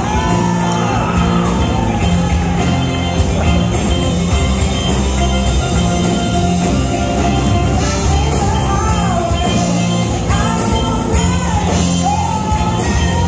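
Live rock band playing: a woman sings the lead over electric guitars, bass guitar and drums keeping a steady beat.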